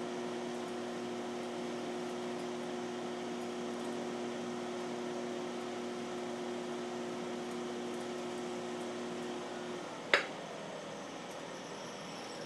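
Electric potter's wheel motor humming steadily while a clay saucer is thrown; about ten seconds in the hum stops, followed at once by a single sharp click.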